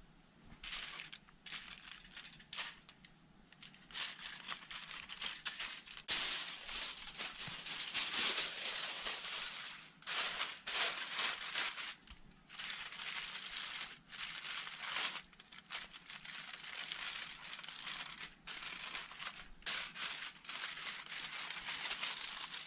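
Aluminium foil being crinkled and folded by hand in irregular bursts while a seasoned fish is wrapped in it.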